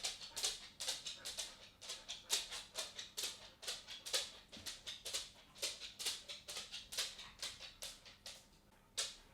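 Dog's claws clicking and tapping on a wooden floor as it walks: quick, irregular clicks, several a second, pausing briefly near the end before starting again.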